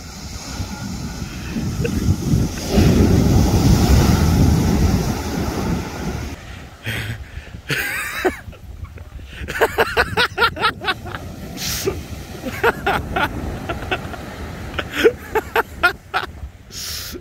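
Surf washing up the beach, with wind buffeting the microphone as a low rumble that is loudest a few seconds in and then eases.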